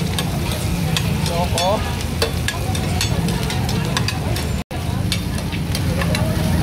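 Metal spatula scraping and clicking against a hot cast-iron sizzling plate as pork sisig is stirred and tossed, the meat sizzling, over a steady low hum. The sound cuts out for an instant about four and a half seconds in.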